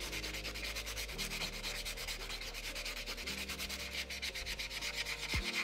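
White nail buffer block rubbed quickly back and forth over a gel top-coated acrylic nail, a fast, even run of dry scuffing strokes. This is buffing the shine off the top coat so that further nail art will stick.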